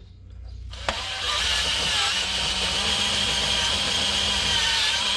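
DeWalt cordless drill spinning a step bit through a hole in a chrome-plated steering wheel spoke, boring the hole out wider: a steady, high metal-cutting whine that starts about a second in.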